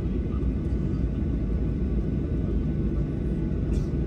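Steady low rumble of an airliner's engines and airflow heard from inside the cabin, with a brief faint scratch near the end.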